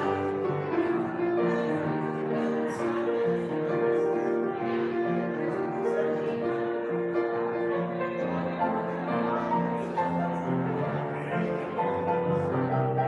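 Grand piano playing a piece of music with held notes.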